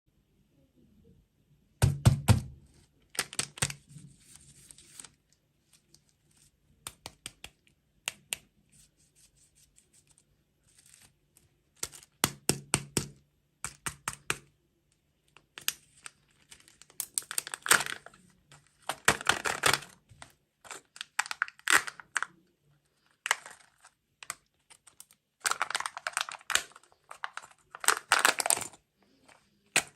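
Irregular clicks, taps and crackling of food packaging being handled and torn open, coming in short clusters with quiet gaps between them.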